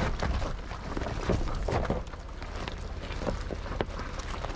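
Land Rover Discovery creeping down a steep, muddy, rocky slope on hill descent control: its tyres crunch and click irregularly over loose stones, over a steady low rumble.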